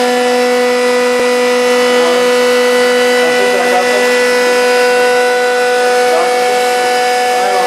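Reverse osmosis desalination plant running: a loud, steady machine hum with an even pitched whine from its pumps and motors.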